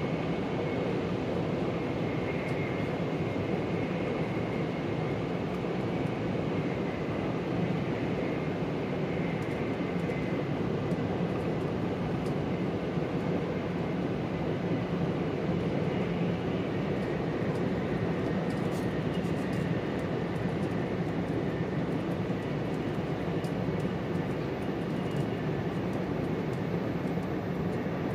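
Steady running noise heard inside the upper deck of an E4 Series Max double-decker Shinkansen travelling at speed: an even rumble and rush of the train, with a faint high tone held above it.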